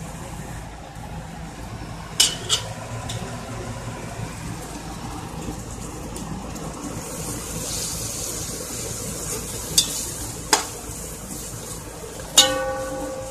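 Garlic-ginger paste sizzling in hot oil with fried onions in a steel pot while a spoon stirs it. There are several sharp knocks of the spoon against the pot, and the last, near the end, rings on briefly.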